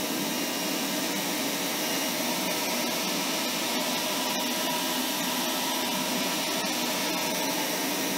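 Electric pressure washer running steadily, rated 1,800 PSI but working at about 1,100, feeding a stainless steel surface cleaner pushed over concrete: a steady motor-and-pump hum under a hiss of water spraying inside the cleaner's hood. The owner thinks this pressure is not enough for the surface cleaner.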